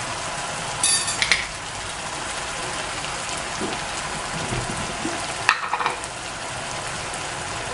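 Diced potato and carrot sizzling steadily in a wok over a gas flame, cooking in a little added water. Two short clatters come about a second in and again about five and a half seconds in.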